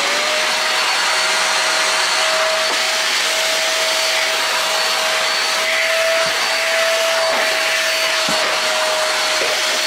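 Fantom Pratik XL upright stick vacuum cleaner switched on for a first test. Its motor spins up at the very start, then runs steadily at full speed with a high whine over the airflow noise.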